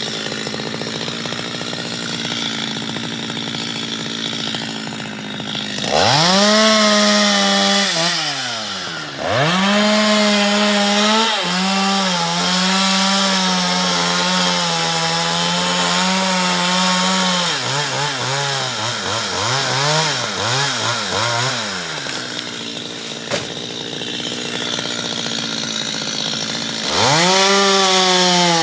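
Chainsaw cutting mango wood. It idles for several seconds, is revved up hard twice, then runs at high speed for a long stretch with its pitch sagging and wavering as it labours. It falls back to idle and is revved up again near the end.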